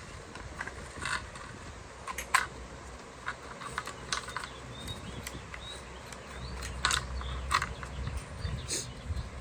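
Lexus IS300 driver's door lock mechanism being cycled: a series of sharp mechanical clicks a second or more apart, as the newly replaced lock actuator locks and unlocks.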